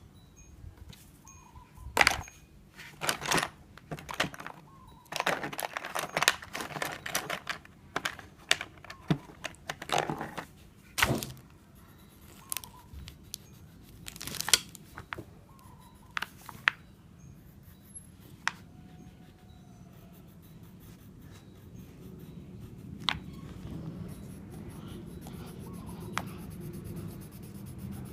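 Rustling, tapping and scratching of paper and pencils as a child draws, with many short sharp clicks through the first half and fewer later. A low steady hum grows slowly louder near the end.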